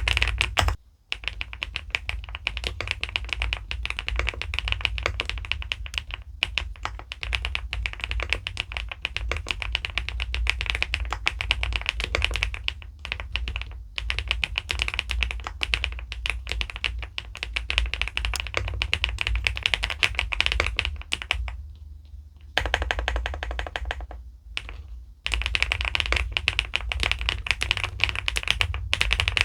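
Fast, continuous typing on an SPM PL87W mechanical keyboard: dense key clacks, broken by a few brief pauses.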